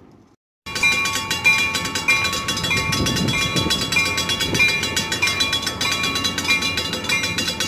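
Railroad grade-crossing warning bell ringing steadily at just under two strokes a second, starting abruptly about half a second in, while the crossing signals flash for an approaching commuter train.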